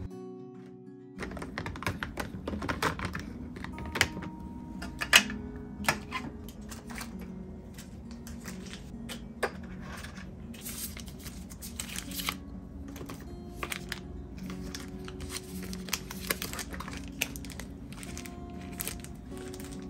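Small bottles, jars and sample sachets being handled in plastic organizer baskets: irregular light clicks and taps with some crinkling of packets, over soft background music.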